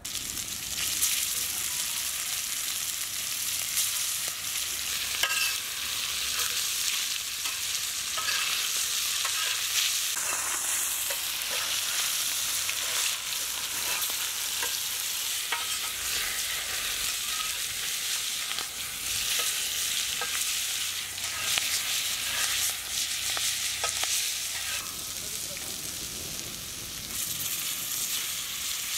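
Marinated shark fish pieces sizzling in hot oil on a large flat iron pan, a steady hiss of frying with scattered sharp crackles and pops.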